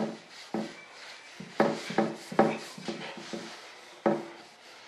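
A rag rubbing release wax by hand across the surface of a wooden mold box, with about half a dozen sharp wooden knocks as the box is worked on, three of them close together around the middle.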